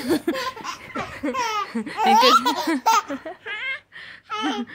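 Baby laughing in a string of short bursts, the pitch wavering and rising.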